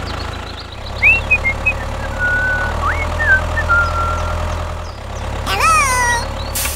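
Vehicle engine running with a steady low rumble. A few short whistling chirps sit over it, and a brief rising-then-falling call comes near the end.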